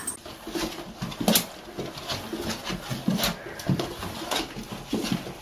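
A small dog running in tight circles on a hard floor: its paws and claws patter and scrabble, with a sharper click or knock about once a second.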